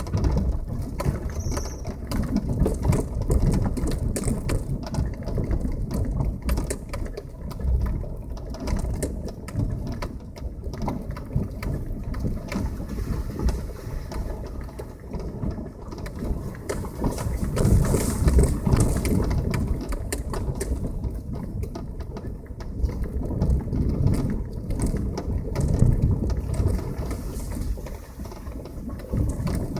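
A passenger car driving on a rough road, heard from inside: a low rumble that swells and fades, with constant rattling and knocking.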